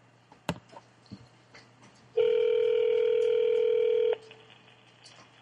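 Telephone ringback tone heard down the line by the caller: one steady two-second ring in the North American two-seconds-on, four-seconds-off cadence, the other end ringing before it is answered. A small click comes about half a second in.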